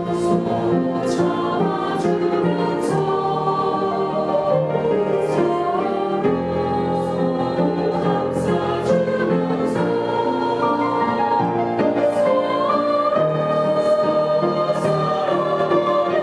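Church choir singing a hymn in held, sustained chords.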